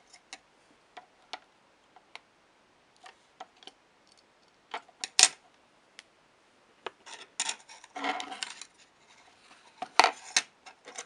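Scattered small clicks and taps of circuit boards and small parts being handled on a desk, with a louder sharp click about five seconds in and again about ten seconds in. A brief rustle about eight seconds in.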